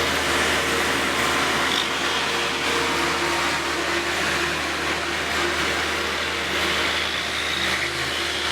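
Heavy machinery engine running steadily, a constant low hum under a noisy rush, with no change in speed.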